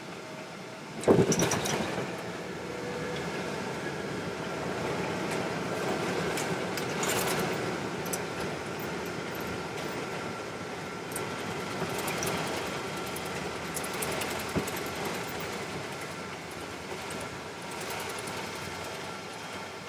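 Cabin noise of a Boeing 777-223ER on the runway at landing: a sharp thump about a second in, then a sustained rush of engine and airflow noise that swells for several seconds and slowly eases as the jet decelerates.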